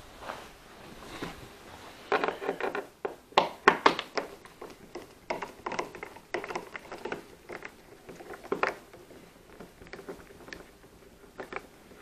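Hand screwdriver backing a screw out of a metal door strike plate: irregular clicks and scrapes of the bit working in the screw head, starting about two seconds in.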